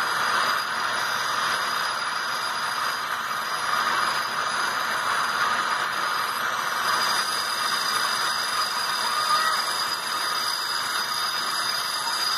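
Bench grinder running steadily while a thin steel rod is held against the grinding wheel, grinding its tip to a needle point.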